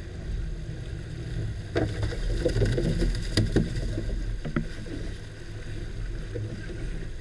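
Twin Suzuki 200 outboard motors idling with a steady low hum, while a gaffed fish thrashes at the stern: a run of splashes and sharp knocks between about two and five seconds in.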